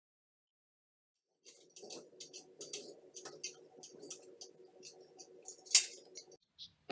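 After about a second and a half of silence, a string of irregular light clicks and ticks over a low steady hum, with one louder click near the end.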